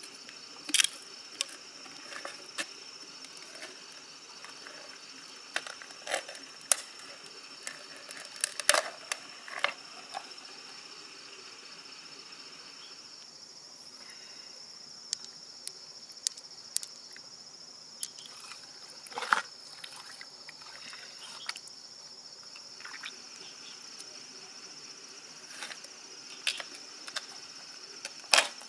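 Steady high-pitched drone of insects, with scattered sharp clicks and knocks of a knife and large freshwater mussel shells being handled; a loud knock comes near the end.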